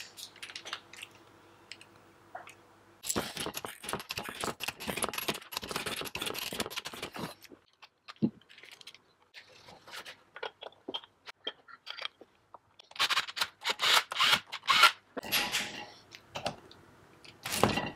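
Bursts of rapid clicking, clattering and scraping from hand tools and metal engine parts being worked on a steel workbench, with quieter gaps between.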